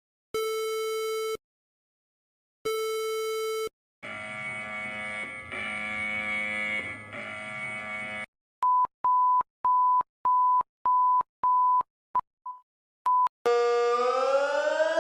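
A run of electronic alarm tones: two buzzy one-second beeps a little over a second apart, then a steady tone rich in overtones for about four seconds, then a string of short high beeps about two a second, and near the end a siren-like tone that starts to rise.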